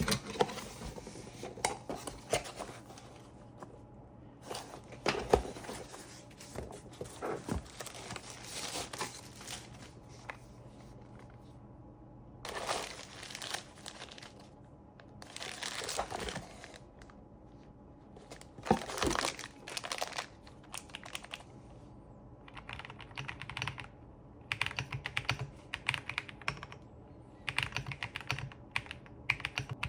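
Packaging being handled during an unboxing: irregular rustling and crinkling in bursts. Over the last third come rapid, irregular key clicks of typing on an XVX M68 wooden mechanical keyboard.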